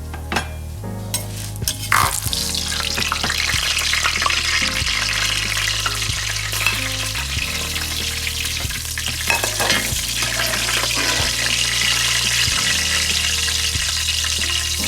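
Food hitting hot oil in a pan about two seconds in and sizzling loudly from then on, with clicks and scrapes of a utensil stirring it.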